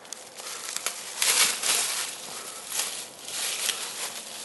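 Footsteps crunching through dry fallen leaves: a few uneven steps, the loudest about a second in, with more later on.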